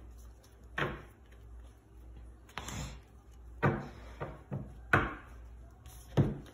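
Tarot cards being handled and laid down on a cloth-covered table: a string of about seven short taps and knocks, with a brief scuffing sound a little before the middle.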